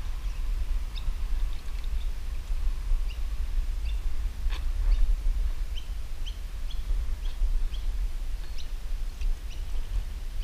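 Small birds chirping, short high chirps about once or twice a second, over a steady low rumble. One sharp click comes about four and a half seconds in.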